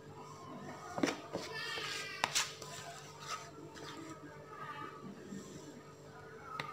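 Faint background voices and music, broken by a few sharp clicks and knocks as the aluminium cake pan and glass batter bowl are handled.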